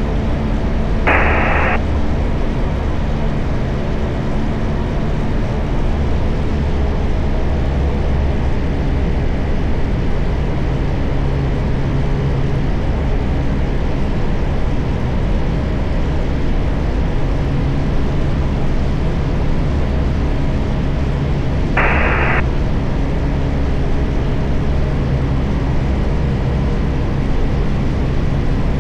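Steady drone of a Tecnam light aircraft's piston engine and propeller in flight, heard through the radio-connected audio feed. Two short bursts of radio squelch hiss come through, one about a second in and one about two-thirds of the way through.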